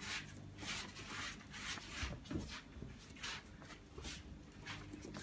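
A Yorkshire terrier puppy's claws scrabbling and skittering on a hardwood floor as it scampers about, in quick irregular scrapes.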